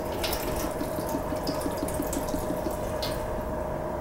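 Tap water running steadily over a block of thawed tuna and splashing into a stainless steel bowl as the salt-water brine is rinsed off.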